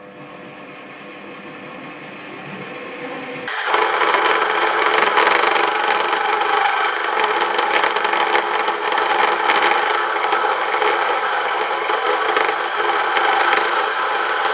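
Variable-speed mini lathe running up, getting steadily louder, then, from about three and a half seconds in, cutting a spinning metal rod: the tool scraping and grinding on the metal as it turns it down.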